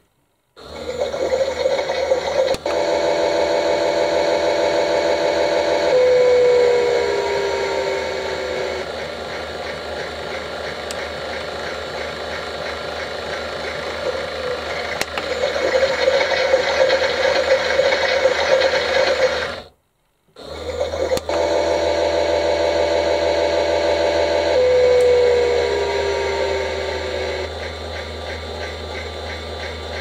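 Battery-powered toy washing machine running its spin cycle: its drum motor whirrs along with a steady toned electronic sound with a falling pitch a few seconds in. The sound cuts out for a moment about twenty seconds in, then starts over the same way.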